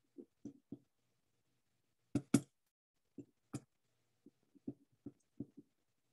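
Irregular taps and clicks of a computer keyboard and mouse at a desk, about a dozen, the sharpest pair a little over two seconds in, with dead silence between them.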